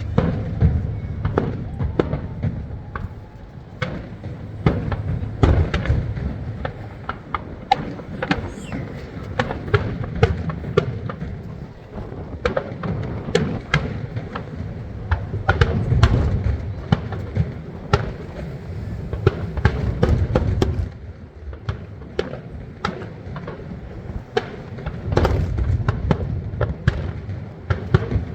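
Fireworks display: a dense, rapid run of aerial shell booms and sharp crackling bursts, easing off briefly about two-thirds of the way through before building up again.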